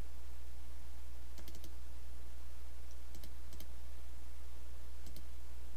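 A few faint computer mouse clicks, some in quick pairs like double-clicks, over a steady low electrical hum.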